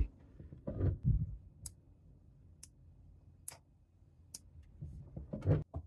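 Small parts of a disassembled airsoft gas pistol clicking and knocking as they are handled, while its safety and pin are being worked out: a couple of low knocks about a second in, then about four sharp single clicks roughly a second apart.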